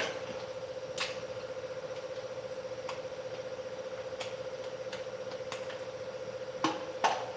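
Steady, slightly pulsing hum with a few light clicks, one about a second in and two close together near the end.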